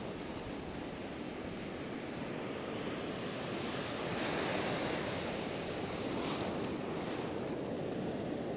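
Ocean surf breaking and washing up the beach in a steady rush of whitewater, swelling louder about four seconds in as a wave comes through.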